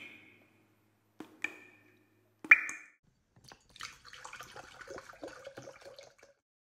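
Three sharp clinks with a short ring, about a second apart, as glassware is set down, then liquid pouring into a container with a bubbling trickle for about three seconds.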